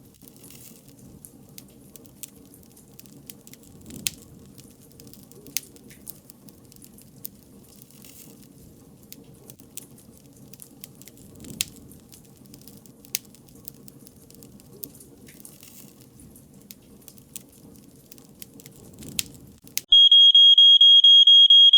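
Wood fire crackling with scattered sharp pops, then about two seconds before the end a loud, high-pitched electronic pager-style beep sounds in quick pulses for about two seconds, signalling that the countdown has run out.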